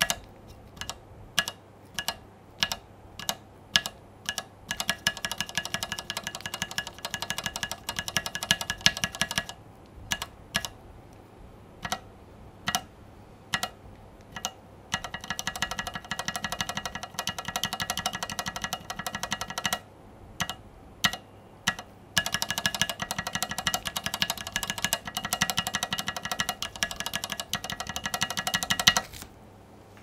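Gateron Ink V2 Black linear key switches pressed, unlubed and lubed, to compare their sound: slow single presses with sharp clicks, then stretches of rapid repeated presses with a ringing tone. The pattern comes three times, with short pauses between.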